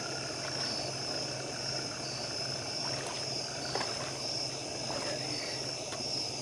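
Night chorus of crickets and other insects: a steady high-pitched trill that swells and dips in slow waves about once a second, with a few faint ticks.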